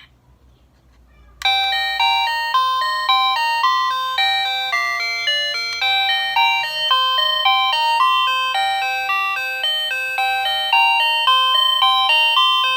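VOYE wireless doorbell receiver playing its electronic chime melody: a quick run of bright, single stepping notes that starts about a second and a half in.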